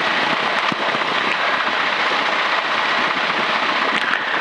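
Steady engine and propeller noise of a taxiing Grumman light airplane, heard inside the cockpit as an even, loud hiss.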